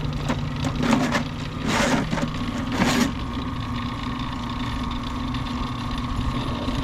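Drain-cleaning machine's motor running steadily, working a clogged drain line, with a couple of short bursts of noise about two and three seconds in.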